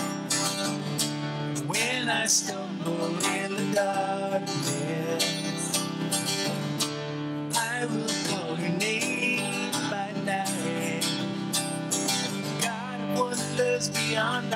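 Live worship band playing a song: strummed acoustic guitars over electric bass, with a woman singing the lead.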